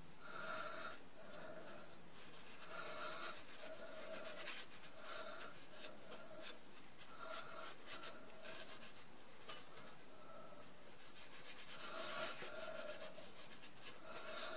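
A cloth rubbing over a metal saw vise part in repeated wiping strokes, roughly one or two a second, each with a slight squeak.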